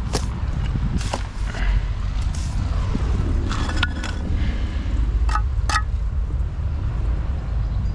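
Construction-site work noise: a steady low rumble with scattered sharp knocks and a few ringing metallic clinks, about five in all.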